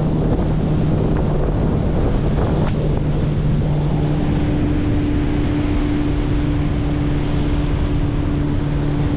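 Motorboat engine running steadily under way, a constant hum that picks up a higher note about four seconds in, with wind buffeting the microphone and water rushing past the hull.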